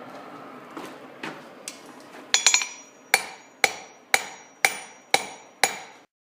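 Blacksmith's hammer striking hot steel on an anvil: a few light taps, a quick flurry of bouncing blows, then six evenly spaced ringing strikes about two a second. It cuts off suddenly near the end.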